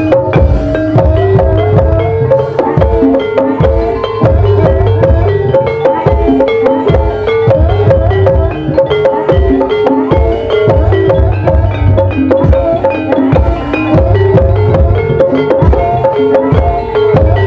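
Javanese gamelan ensemble playing ebeg accompaniment: metallophones ring out a stepped melody over steady, repeated kendang drum strokes.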